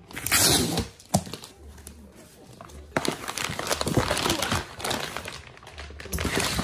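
Crinkling and rustling of handled packaging, in irregular bursts with a few sharp clicks.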